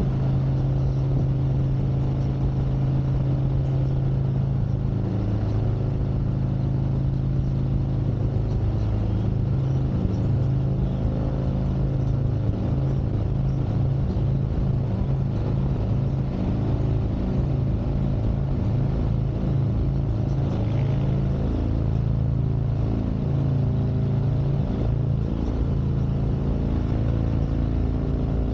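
Harley-Davidson Street Glide Special's Milwaukee-Eight 114 V-twin running under way, holding a steady note, with engine speed rising and falling through the middle before settling again.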